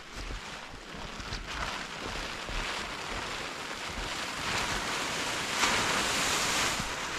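Blue plastic tarp being dragged off a snow-covered plywood platform, rustling and crinkling continuously, louder toward the end.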